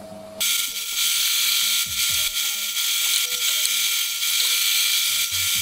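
Bandsaw running and cutting a board, starting abruptly about half a second in as a steady, hissing machine noise with a constant whine.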